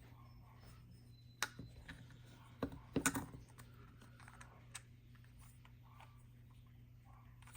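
Magnetic fidget slider worked by hand, giving a few scattered sharp clicks, with the loudest cluster about three seconds in.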